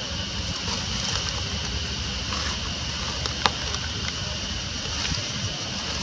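Steady outdoor background noise, a low rumble under a high hiss, with one sharp click about three and a half seconds in.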